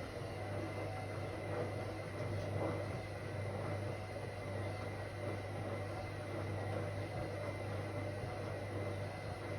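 Whirlpool AWOC 8283 washing machine running steadily, a low motor hum over an even rushing noise.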